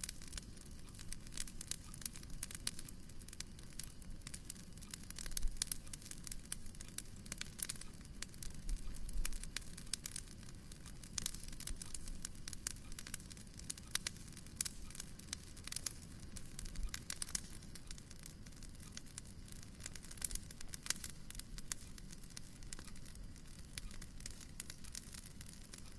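Wood fire in a fireplace crackling, with a dense run of small, irregular pops and snaps over a soft low rumble.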